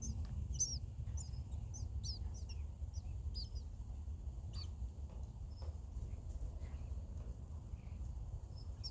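Baby birds chirping inside a birdhouse: quick, high chirps, thick in the first few seconds and sparser after, over a low steady rumble.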